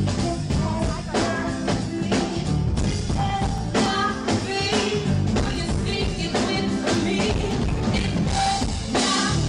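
A woman singing lead with a live band: drum kit and guitars keep a steady beat under her voice.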